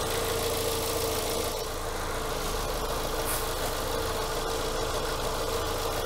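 Renault Logan's 1.6 eight-valve K7M petrol engine idling steadily, with a steady hum held on one note.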